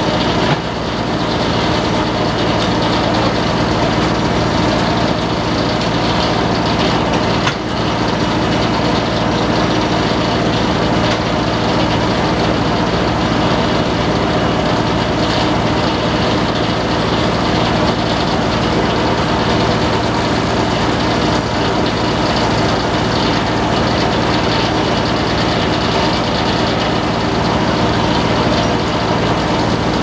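Antique circular sawmill running without cutting: the spinning saw blade and its engine drive give a steady mechanical hum.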